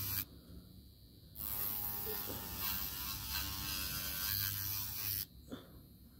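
Electric nail file whirring, its bit grinding against the fingernail from about a second in until near the end, filing away loose, lifted nail product.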